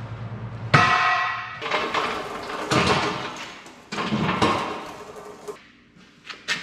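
A torched-off steel Westendorf loader bracket dropped on a concrete floor with a ringing clang about a second in, followed by clanking and rattling as a hand pallet jack is wheeled over; a few sharp clicks near the end.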